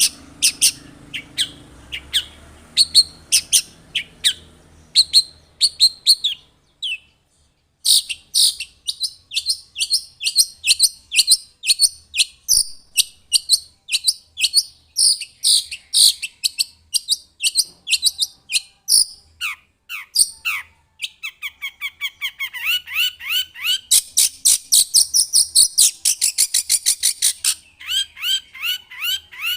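Long-tailed shrike (cendet) singing in a rapid string of sharp, high chirps, several a second, with a brief break about seven seconds in. Near the end it switches to a fast run of short downward-sliding notes.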